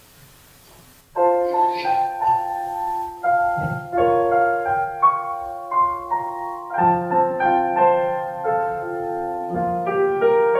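Piano playing the introduction to a choir anthem. It starts about a second in, with chords under a melody.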